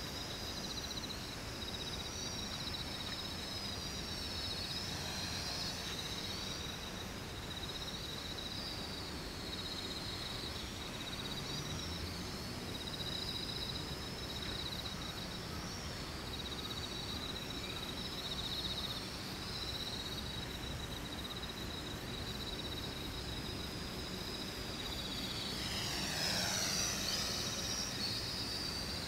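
X400 quadcopter's electric motors and propellers whining, the pitch wavering up and down with the throttle. About 26 s in, the whine grows a little louder and drops steeply in pitch.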